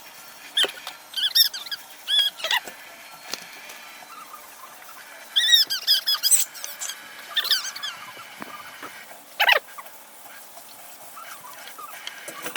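A baby's short, high-pitched squeals, in two clusters of several, with one more call a couple of seconds after the second cluster.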